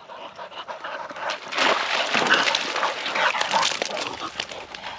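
Springer spaniel whimpering close by, mixed with irregular scuffing and rustling that gets louder about a second and a half in.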